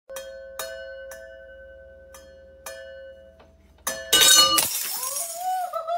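Glass bottles in a wine rack clinking, struck about five times in the first three seconds, each strike leaving a bell-like ringing tone. Just before four seconds comes a louder clatter. In the last second a single pitched tone rises and then holds steady.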